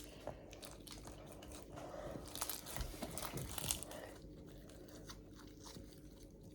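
Hand-kneaded slime with hand lotion just worked in, stretched and squeezed with faint crackling, squelching pops, busiest between about two and four seconds in.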